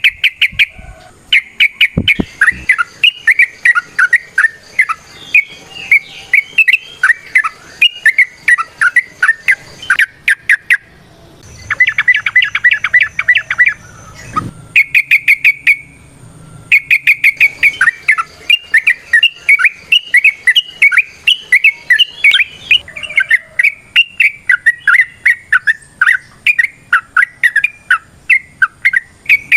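Yellow-vented bulbul (trucukan) singing a long, rapid string of varied chirping notes, with a fast rattling burst partway through. A faint steady high whine sits under the second half.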